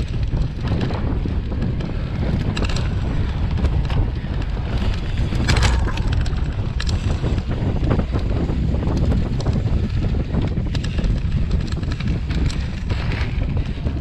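Wind buffeting the microphone over the rumble and rattle of a cyclocross bike riding fast on rough dirt, with scattered clicks and a sharper knock about five and a half seconds in.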